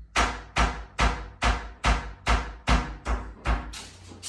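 Hammering: a run of about nine or ten even strikes, roughly two and a half a second, each with a heavy thud, dying away near the end.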